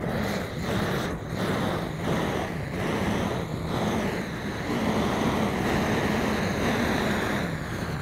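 Snow Peak FireTorch butane torch blowing a steady jet of flame into a pile of twigs to light a campfire: a continuous hiss with a low rumble underneath.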